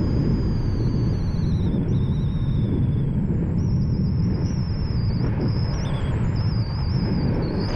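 FPV quadcopter in flight: high-pitched motor whine wavering in pitch with the throttle, over a steady rumble of wind and prop wash.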